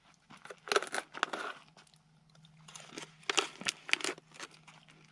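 Crisp maple-flavoured bacon being bitten and chewed close to the microphone, in two spells of crunching.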